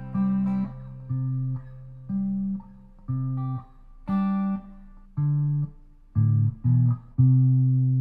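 Outro music on a low plucked guitar: single notes about once a second, two quicker notes near the end, then a final note that rings on.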